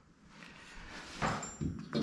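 A metal bath spout being handled and offered up against its threaded wall fitting: three short knocks and scrapes in the second half, over a light rustle.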